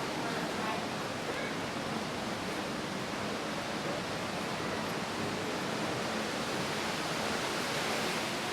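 Steady, even rushing noise with no breaks, like water running or air moving through an indoor exhibit hall.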